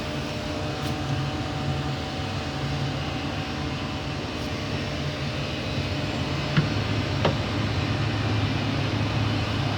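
CNC laser engraving machine running with a steady mechanical hum. About two thirds of the way through there are two short clicks, and the hum shifts to a lower, stronger pitch.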